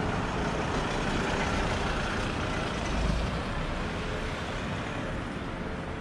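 Road traffic: cars driving past close by, a steady tyre and engine noise that swells a little around the middle.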